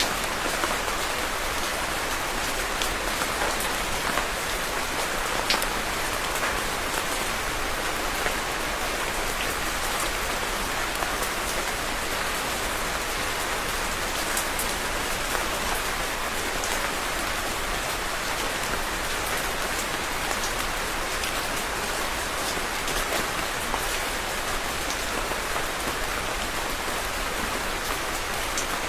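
Steady rain falling on a surface, a continuous hiss dotted with the ticks of individual drops.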